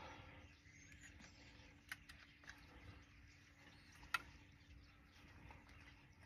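Near silence with two light clicks about two seconds apart, the second the sharper, as an arrow is loaded onto a compound bow.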